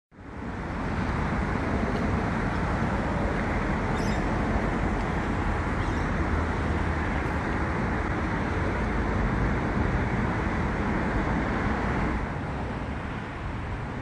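Steady hum of road traffic, a little quieter about twelve seconds in.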